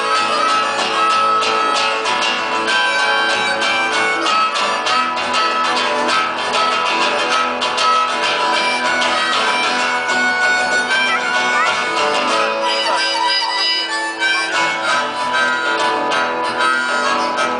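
Harmonica playing a lead solo over two strummed acoustic guitars in a live acoustic band.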